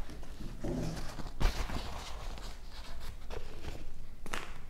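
Objects being handled and moved about on a tabletop: rustling with scattered clicks and a sharper knock about a second and a half in.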